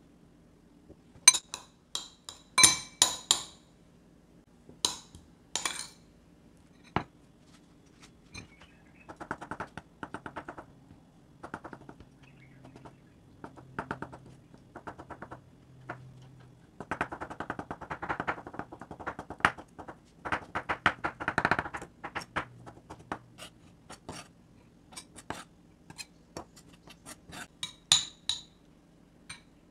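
Boiled eggs and shell clinking against a glass bowl in a few sharp clinks during the first few seconds. Then a chef's knife chopping boiled egg on a wooden cutting board in runs of quick knocks, and near the end a spoon mashing the egg and clinking against the glass bowl.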